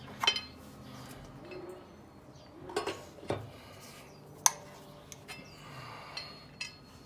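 Scattered metallic clinks and knocks of a hand wrench and socket on wheel lug nuts as they are snugged up, a few sharp separate clicks with pauses between.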